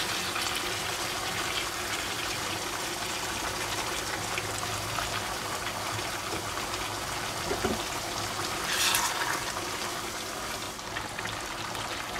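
Pan of zucchini, mince and tomato sizzling and bubbling steadily on the hob, just after broth has been poured in. There is one brief louder rush of noise about nine seconds in.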